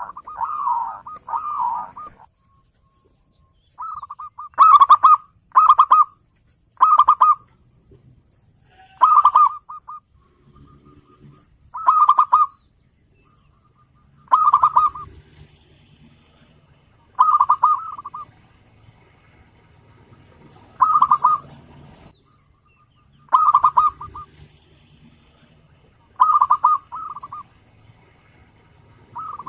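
Zebra dove (perkutut) singing: short cooing phrases of rapid stuttering notes, repeated about every two to three seconds.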